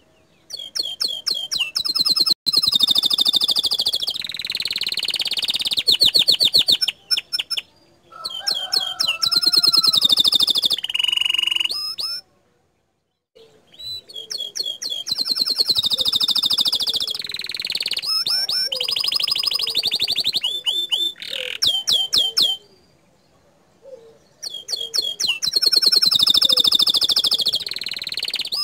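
Bottle-green canary singing in long bursts of fast, rapidly repeated notes and trills, the 'tembakan' shot-like phrases. There are four song bouts, each several seconds long, with short pauses between them.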